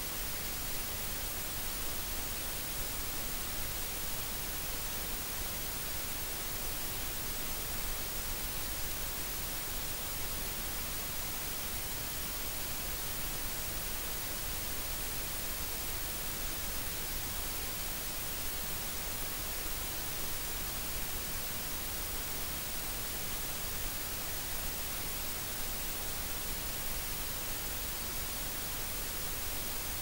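Steady white noise: an even hiss with no breaks or changes.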